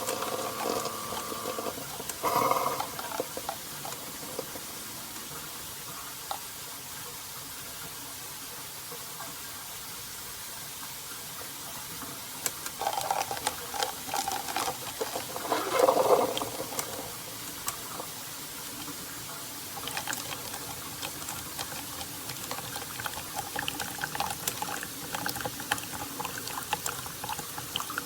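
Keurig K-Slim single-serve pod coffee maker brewing: a steady hiss of liquid streaming and pouring, with a couple of louder surges.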